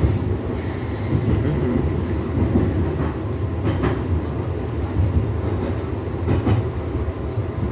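A tram heard from inside the car while it is running: a steady low rumble of wheels and motors, with a few short clicks and knocks.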